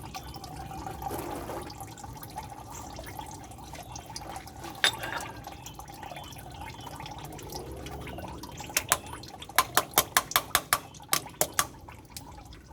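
Engine oil draining from a Porsche Boxster into a drip pan, a steady trickle. Near the end comes a quick run of about a dozen sharp clicks, around four a second.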